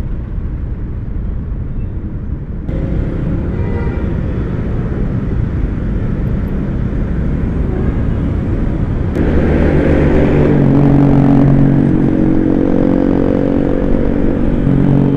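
Motor scooter engines in dense motorcycle traffic, with wind rushing over the microphone as a low rumble. About nine seconds in, a louder, steady engine hum comes up as the ride gets under way.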